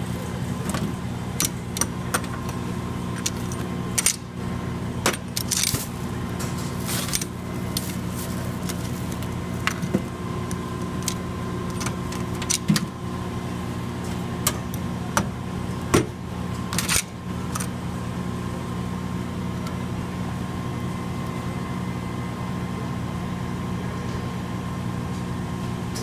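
Live blue crabs clicking and scraping their shells and claws on a stainless steel bin, mixed with crinkles of a plastic bag. The clatter comes in scattered bursts over the first two-thirds and then stops, over a steady hum of several fixed tones.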